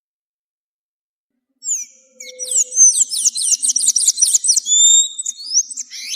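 Glaucous-blue grosbeak (azulejo) singing: after a second and a half of silence, a fast run of high, quickly falling notes that lasts about four seconds.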